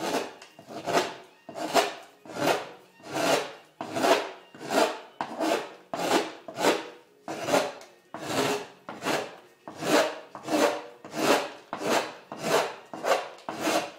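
A hand gouge cutting shavings from the wooden top of a cello in steady, repeated strokes, about one every 0.7 seconds, each a short rising and falling scrape; the top is being graduated, carved down toward its final thickness.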